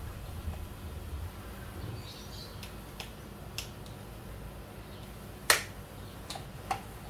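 Six sharp plastic clicks and snaps from handling an RC car's remote transmitter, spread over the last few seconds. The loudest comes about five and a half seconds in.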